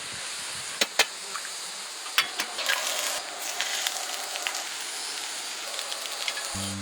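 A wood fire crackling over a steady hiss, with sharp pops about a second in and again around two to three seconds in.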